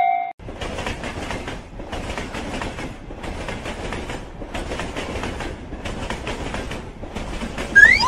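Train running past: a steady rumbling clatter that swells and dips about once a second, like wheels crossing rail joints. It starts right after a last ding of a railroad crossing bell, and near the end a quick rising whistle glide sets in.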